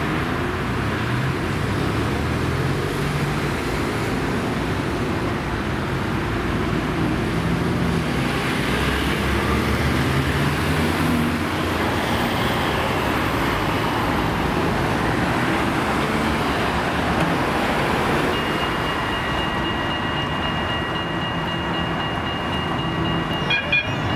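HTM Siemens Avenio low-floor tram approaching along grassed track over steady road traffic noise. In the last quarter a steady whine from the tram's drive comes in, and a few clicks near the end as it draws close.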